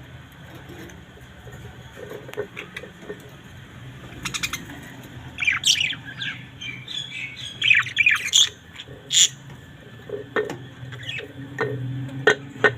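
A pair of budgerigars chirping and chattering. After a few quieter seconds comes a run of quick chirps and warbling calls, then scattered short, sharp calls near the end.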